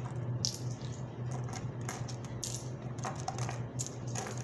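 Coins from an opened coin bank clinking against one another as they are handled and counted, in a series of irregular sharp clicks.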